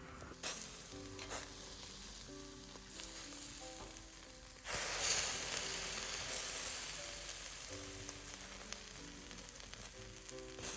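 Food sizzling in a hot pan, with a sudden louder burst of sizzling about halfway through that slowly dies back down, as when more food goes into the pan.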